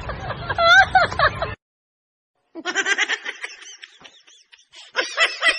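People in a crowd laughing and giggling in short rapid bursts, broken by about a second of dead silence a second and a half in, after which the laughter picks up again.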